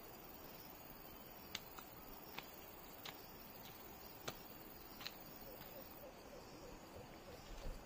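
Near silence: a faint steady hiss with a handful of brief, faint ticks scattered through it.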